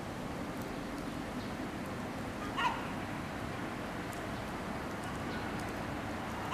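A gull gives a short call about two and a half seconds in and another right at the end, over steady background noise.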